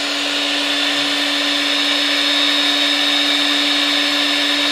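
Powerbor PB100E FRV magnetic drill's 1700 W motor running at a steady speed with no load, its annular cutter spinning free: a steady, high motor whine.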